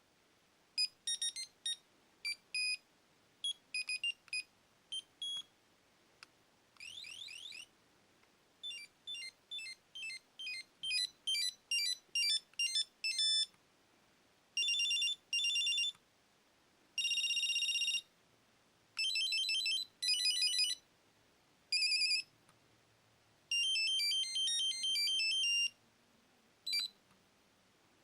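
Nokia 7110 mobile phone playing its preloaded monophonic ringtones through its small speaker, one short snippet after another: bright, beeping note melodies, a couple of long buzzy held tones and quick rising arpeggios, each lasting a second or two with brief pauses between.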